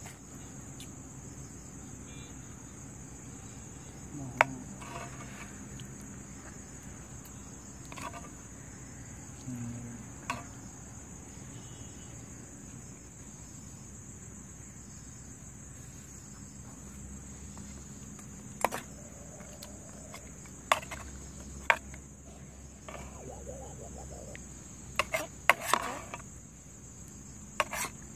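A steady high insect chorus of chirring crickets runs throughout, with sharp metal clinks now and then as a steel ladle knocks against a steel pot and plate while serving curry; the clinks come most often near the end.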